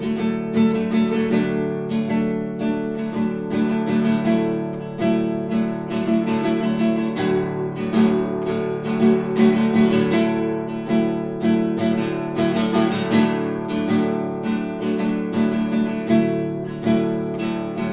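Classical guitar played solo, a steady run of plucked notes and chords, picked up from about two and a half metres away in a living room.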